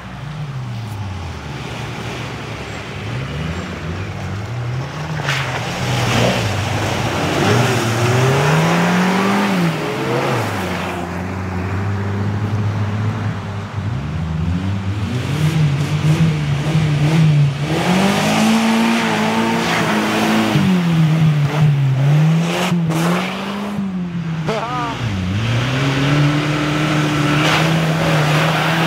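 Off-road vehicles' engines revving up and down over and over as they drive through deep mud, the pitch climbing and dropping every second or two. Mud and water splash up near the end.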